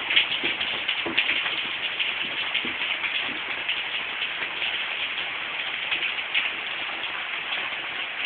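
Steady rain falling and pattering on surfaces, with scattered irregular drips and splashes.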